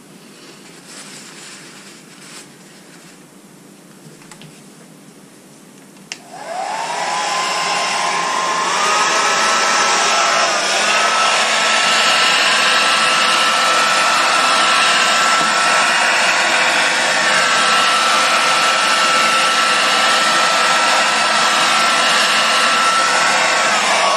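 A hair dryer switches on about six seconds in: its motor whine rises as it spins up and then holds a steady high tone over a loud rush of air. It is blowing wet acrylic pour paint outward across a canvas to open up a bloom. Before it starts there are only faint handling sounds.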